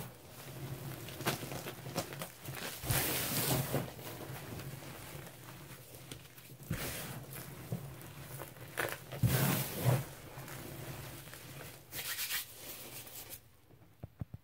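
Hands scooping, squeezing and dropping crumbled powder from a lemon Comet, baking soda and chalk cleaning slab: a soft crunchy rustling of falling powder in several louder swells, fading out near the end.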